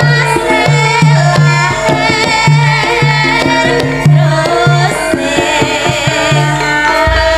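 A sinden (Javanese female singer) sings through a microphone, holding wavering, ornamented notes. A gamelan ensemble accompanies her, with repeated hand-drum strokes.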